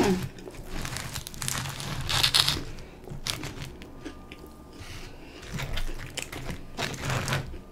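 Crunching and crackling of crispy beer-battered onion rings being pulled apart and eaten close to the microphone, in irregular bursts.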